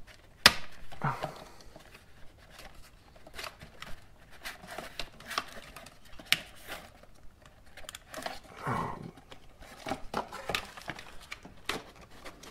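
Sharp plastic clicks, taps and handling rustle as a GoPro Wi-Fi remote and camera are worked loose from their plastic mounts in the cardboard packaging; a single click about half a second in is the loudest.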